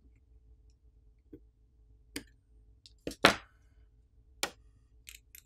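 Scattered sharp clicks and taps of a metal-tipped tool and the small circuit board against a Samsung Galaxy S22+'s frame as the subboard is pried up and lifted out. There are about seven in all, the loudest a little past three seconds in.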